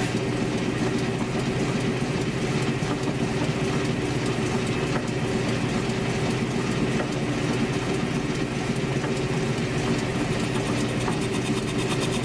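South Bend metal lathe running steadily with a constant motor and belt-drive hum, while a cutting tool feeds into the rubbery tyre of a Razor scooter wheel.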